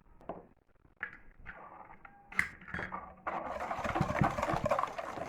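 Cocoa powder being sifted through a mesh sieve: a few light clicks, then from about three seconds in a steady scratchy rustle as the sieve is shaken and tapped.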